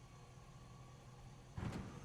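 Truck engine idling with a faint, steady low hum, broken about one and a half seconds in by a short loud thump.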